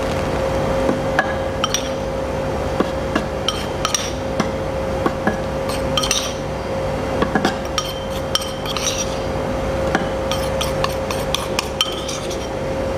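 Food processor running steadily as it grinds a beef-and-ice paste for meatballs, with a steady hum. Over it comes a scattered run of sharp clinks, a metal spoon tapping against a ceramic bowl as starch is knocked into the feed chute.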